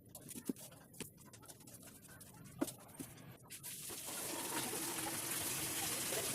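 A few light clicks and taps, then about four seconds in a homemade 12 V mini-drill vacuum cleaner starts and runs with a steady airy whir over a low hum.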